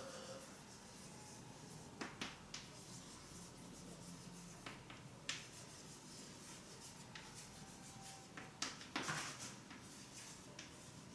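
Faint handwriting: short scratching and tapping strokes of a pen on a writing surface, with sharper clusters about two seconds in, around five seconds and again near nine seconds.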